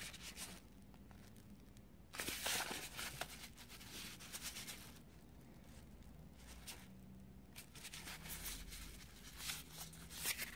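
Small plastic bag and rolled paper template rustling and crinkling as they are handled, in several short bursts, the loudest about two seconds in.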